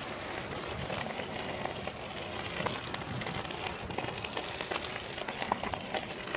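A Ninebot scooter's tyres rolling over rough off-road ground: a steady crackling rumble with scattered small clicks and ticks from grit and bumps.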